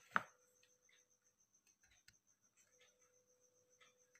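Near silence with small handling noises from a circuit board and diode leads being fitted: one sharp click just after the start, then a few faint ticks.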